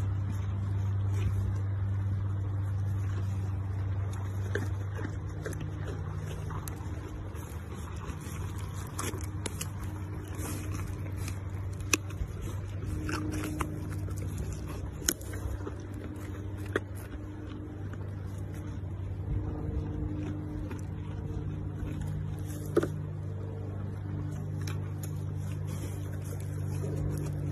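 A steady low hum, with a few sharp crunches here and there as sheep bite into whole carrots.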